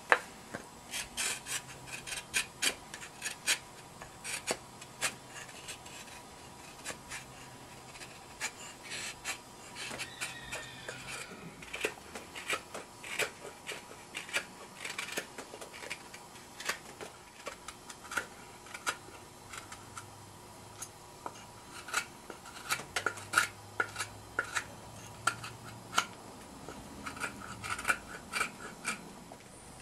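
Medium straight carving knife (North Bay Forge) slicing thin shavings off the rim of a wooden bowl: a steady series of short, irregular cutting strokes, a couple a second, as the edge is chamfered and softened.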